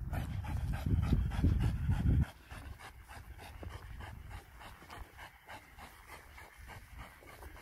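A Belgian Malinois panting in quick, even breaths. A loud low rumble covers the first two seconds and cuts off suddenly.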